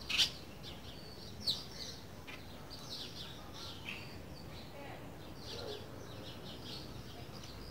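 Green-winged saltator (trinca-ferro) singing its 'boiadeiro' song: a string of short, sharp whistled notes, the loudest right at the start and another strong one about a second and a half in.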